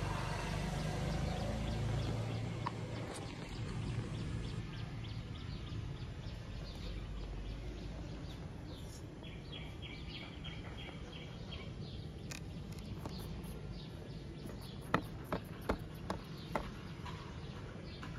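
A new skateboard being handled: a quick cluster of four or five sharp knocks and clicks about three-quarters through, over a steady low background rumble.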